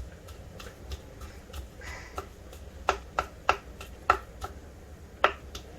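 Knife chopping onion into small pieces, the blade knocking on the board in about ten irregular sharp strokes.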